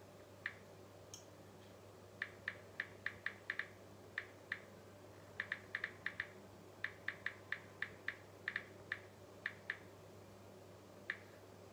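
Typing on a smartphone: light, short taps in quick irregular bursts of a few per second, over a faint steady electrical hum.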